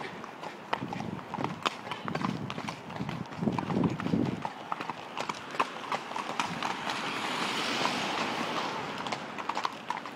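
Hooves of two ridden horses clip-clopping on a tarmac road, a run of sharp, irregular hoof strikes.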